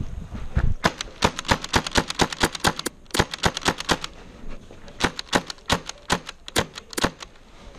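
Airsoft MK23 pistol in a 3D-printed RM277-style carbine body firing a rapid string of semi-auto shots, sharp clicks about six or seven a second. The shots break off for about a second in the middle, then resume.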